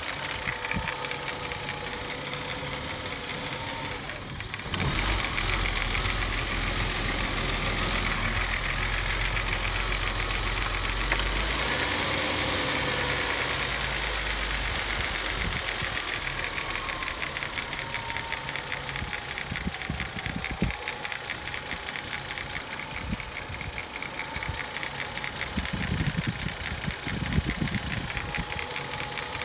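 Engine running with a fast, regular rattling clatter of unknown origin. About five seconds in it speeds up and is held for several seconds, then eases back down to idle with the rattle still there.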